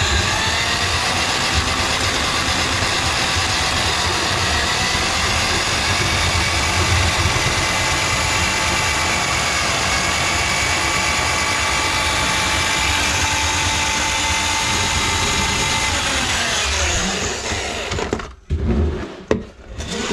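Handheld electric drum drain auger running steadily, its cable spinning in a kitchen sink drain line choked with grease. Near the end the motor winds down and stops, followed by a few knocks.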